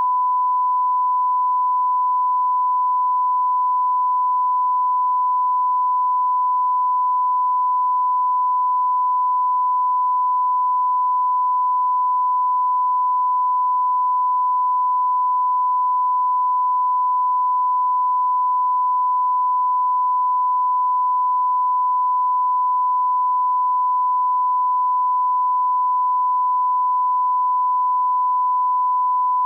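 Censor bleep: one unbroken beep tone held at a single steady pitch, covering swearing.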